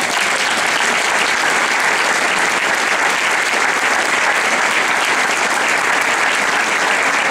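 Audience applauding steadily, a dense mass of clapping that rose out of a few scattered claps just before and holds at an even level.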